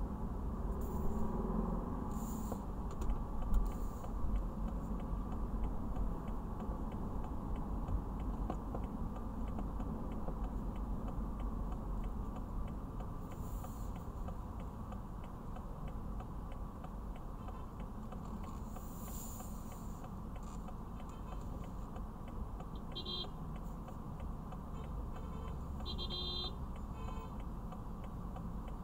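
Car cabin noise while driving: a steady low rumble of engine and road. A light, even ticking runs through the middle, and a few short high beeps or chirps come near the end.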